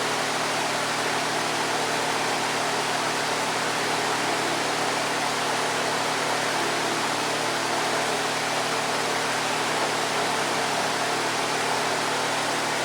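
Electric fan running steadily: an even rushing noise with a low, steady hum underneath.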